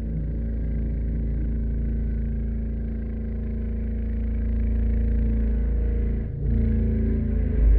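Steady low droning hum over a heavy rumble, dipping briefly about six seconds in.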